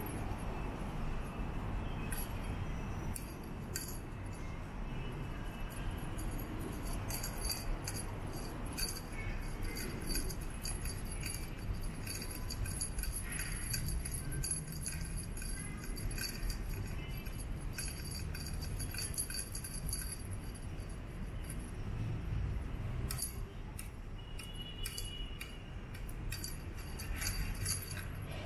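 Small bell on a cat teaser wand toy jingling in irregular bursts as the toy is shaken and dragged, with a few quieter pauses. A steady low rumble runs underneath.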